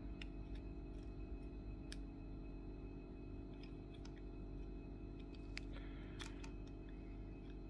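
Faint scattered clicks and taps of a small screwdriver and fingers working at a stuck board-to-board connector inside a GoPro Karma gimbal handle, a few sharper clicks about two seconds in and around six seconds, over a steady low hum.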